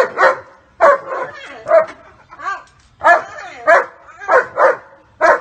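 German shepherd barking repeatedly, loud and often in pairs, about two barks a second. It is protective barking at a person mock-striking its owner.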